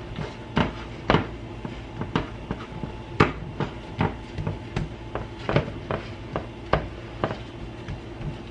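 Hands pressing cookie-bar dough into a ceramic baking dish, the dish knocking on a glass-top stove in irregular sharp knocks about twice a second.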